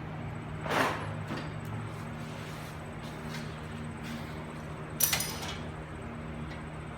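Two short clatters of tools and bolts being handled while the wheel hub is bolted back on: a softer one about a second in and a sharper, louder one about five seconds in, over a steady low hum.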